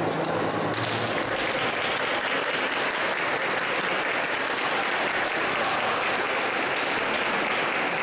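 Audience applauding, starting under the last low notes of a classical guitar, which die away about a second in.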